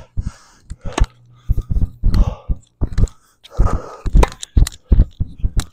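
Tennis balls being struck with rackets and bouncing on the court during a forehand rally: a series of sharp pops, irregularly spaced about half a second to a second apart.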